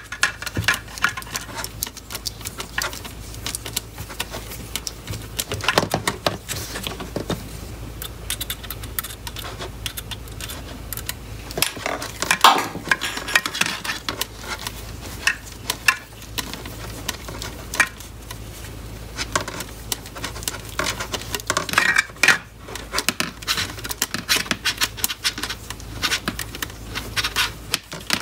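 Hands handling and fitting 3D-printed plastic frame beams: irregular plastic clicks, taps and light rattles, busiest about twelve seconds in and again about twenty-two seconds in.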